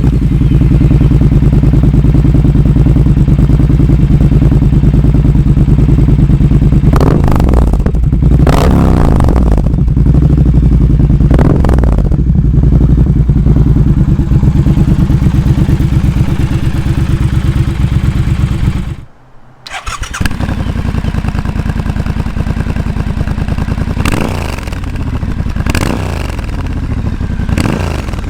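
Triumph Scrambler 1200's 1200 cc parallel-twin engine idling and being revved in a comparison of a Zard full decat exhaust against the stock exhaust. A loud take with three revs is followed, after an abrupt break about two-thirds through, by a quieter take with three more revs.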